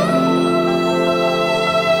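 Background music: sustained instrumental notes with a rising slide into a held chord at the start.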